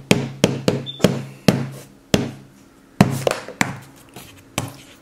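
About ten sharp, irregular taps and knocks of a pen and markers against paper on a hard tabletop as a capuchin monkey draws. There is a short pause midway.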